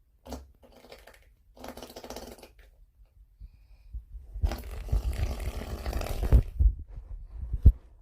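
A person snoring: three short pitched snores in the first couple of seconds. From about four seconds in comes a louder stretch of rough noise with low thumps, ending with a sharp thump near the end.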